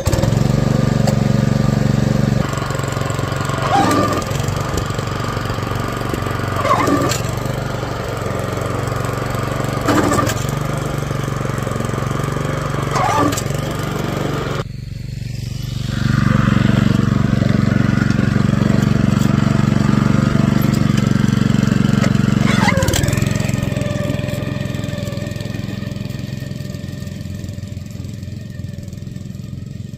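Honda GX engine on a walk-behind core aerator catching on the pull-start and running steadily, its throttle only part way forward, so it runs slow and a little underpowered. A clunk stands out about every three seconds in the first half. After a short break about halfway, the engine comes back loud and fades as the aerator moves away.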